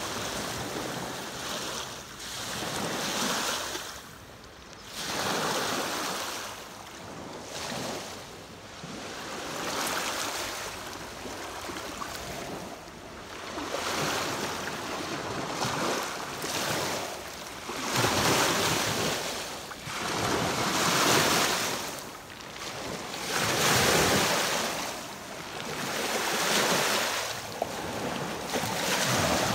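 Small lake waves lapping and washing in over a beach of flat pebbles, swelling and fading every two to three seconds.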